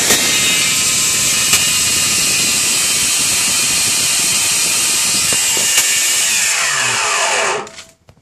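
Steam cleaner's brushed electric motor, out of its housing, running at full speed with a harsh, hissy whine and a few sharp cracks while its brushes spark heavily, which the owner is unsure is normal. Near the end its pitch falls as it slows, and then it stops.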